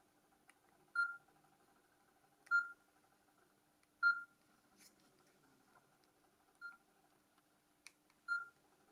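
Nokia 6210s Navigator keypad tones: five short, identical beeps spaced about a second and a half apart as its keys are pressed, with a few faint key clicks in between.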